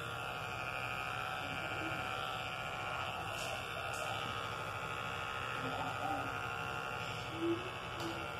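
Corded electric pet clippers running with a steady buzzing hum while trimming a dog's coat, with a brief soft sound near the end.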